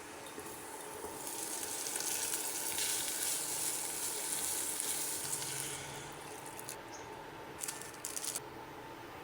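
Food sizzling in hot oil, the hiss swelling about a second in and dying down near six seconds, followed by a few short clicks near the end.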